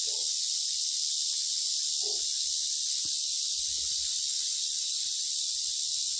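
Western diamondback rattlesnake rattling its tail in a steady, unbroken high buzz while held behind the head, a defensive warning from an agitated snake. A few faint handling knocks underneath.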